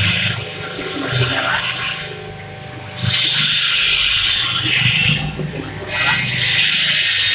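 Electric motor of a horizontal ribbon mixer running with a steady hum. A loud hissing rush comes in twice over it, from about three seconds in and again near the end.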